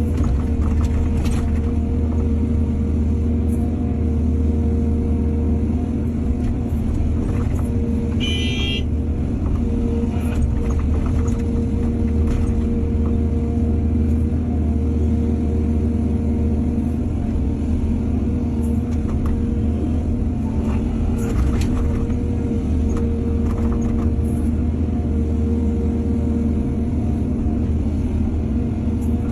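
Excavator's diesel engine running steadily under load, with scattered knocks and clanks and a brief high squeak about eight seconds in.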